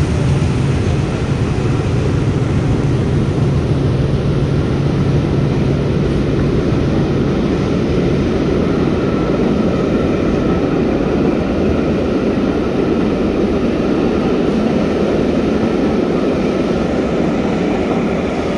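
Train passing at close range: a steady engine hum fades over the first half while the rumble of wheels on the rails grows.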